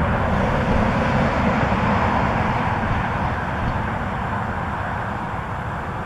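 Steady rush of highway traffic, a continuous noise without distinct events that eases slightly toward the end.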